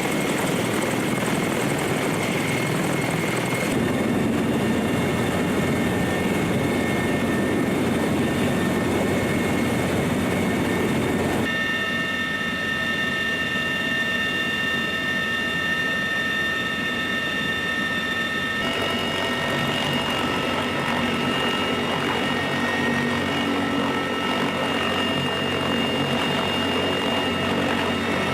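Sikorsky CH-53E Super Stallion heavy-lift helicopter running: a steady rotor and turbine noise with high whining tones, changing abruptly three times.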